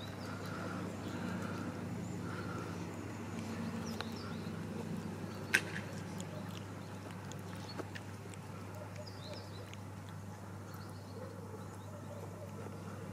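A cat eating wet food, faint chewing ticks over a steady low hum, with one sharp click about five and a half seconds in.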